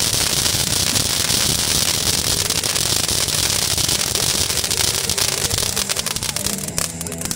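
Brothers Fireworks 'Oversize Load' fountain burning: a steady rushing hiss of spraying sparks, thick with rapid crackling.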